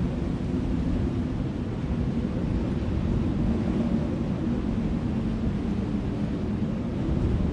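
Wind blowing across an open field: a steady low rumble with little hiss above it.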